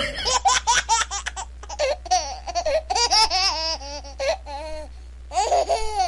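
High-pitched child's laughter: a quick run of short laughs, then longer rising-and-falling peals.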